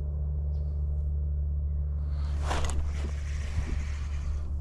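A steady low rumble, with a brief rushing swish about two and a half seconds in and a few light clicks after it: a fishing rod swept up in a hookset that misses a bite on the jig.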